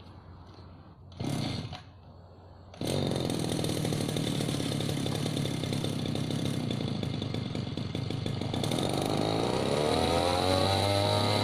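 Brush cutter engine fitted with a steel blade: a short burst a little over a second in, then the engine starts about three seconds in and runs steadily. Its pitch rises near the end as the engine speeds up.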